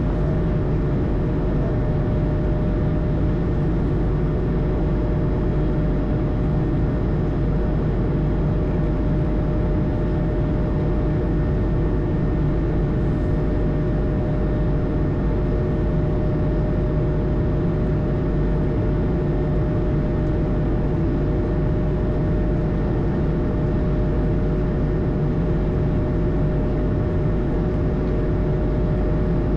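Steady engine and flight-deck noise inside an Airbus A220 cockpit, its Pratt & Whitney PW1500G geared turbofans running at a constant setting. A continuous hum at two steady pitches sits over an even rushing noise, with no change in level.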